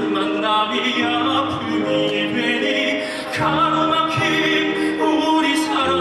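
Male vocalist singing a song from a Korean musical into a microphone through a PA system, holding long notes over instrumental accompaniment.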